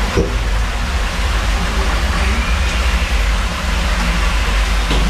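Water rushing steadily into the top of an enclosed water slide, a loud continuous rush with a low rumble.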